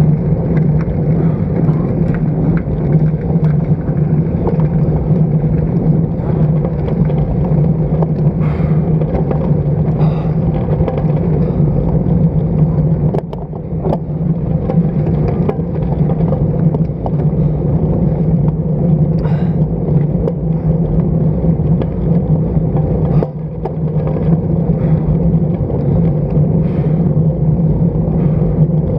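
Wind rushing over the microphone of a bicycle-mounted action camera, with the steady road noise of a road bike in motion. The noise drops briefly twice, about a third and three-quarters of the way through.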